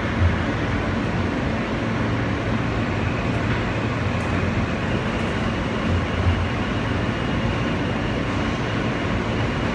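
New York City subway train, an R160 car, running along the track: a steady rumble with a low, constant hum.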